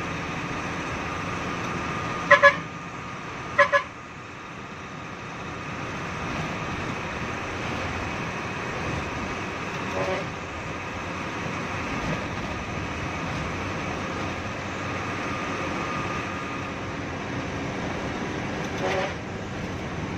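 Hino AK3HR Ranger bus running along the road, heard from inside the cab as a steady engine and road noise. Its horn gives two quick double toots about two and three and a half seconds in, the loudest sounds here, and single lighter toots near the middle and near the end.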